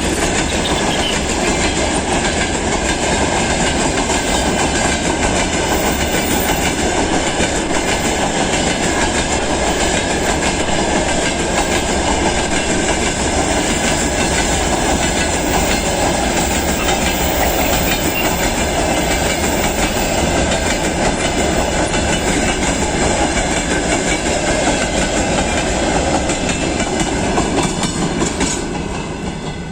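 Rail vehicle running along the track, its wheels rolling and clattering over the rail joints in a steady din that eases a little near the end.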